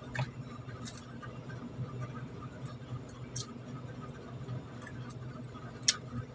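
Fingers peeling a calamansi by hand: a few sharp, short clicks of peel and fingernail, the loudest near the end, over a steady low hum.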